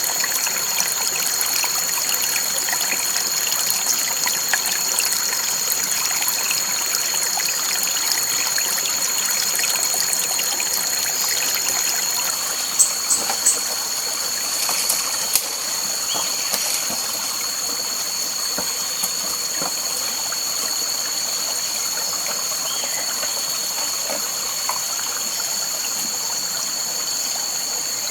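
Waterfall rushing steadily, a constant hiss of falling water, with two steady high-pitched tones above it and a few short chirps about halfway through.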